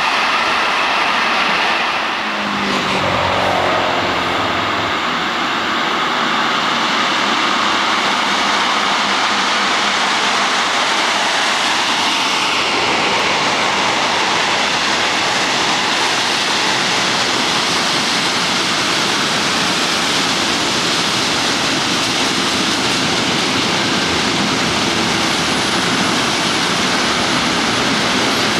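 Freight trains rolling past close by: a steady, loud rumble and rush of wagons running over the rails, with a brief falling tone about three seconds in.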